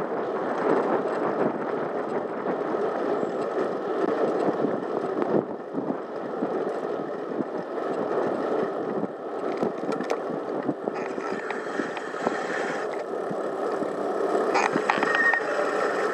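Bicycle rolling along a tarmac cycle path: a steady noise of the tyres on the surface, with small knocks and rattles from the bike.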